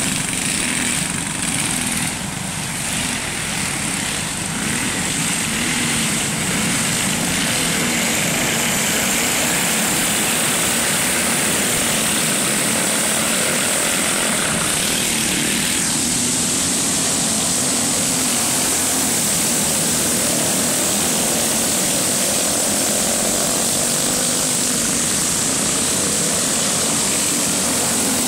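Several go-kart engines running at race speed on a dirt oval, a continuous drone whose pitch wavers as the karts accelerate and pass.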